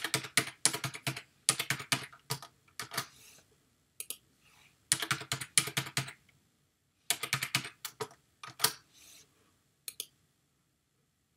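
Typing on a computer keyboard: three quick runs of keystrokes with short pauses between them as a password is entered twice, then a single click near the end.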